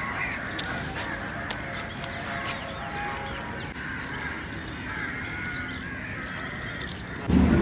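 Crows cawing over outdoor background noise, with a few faint clicks. A much louder sound cuts in abruptly near the end.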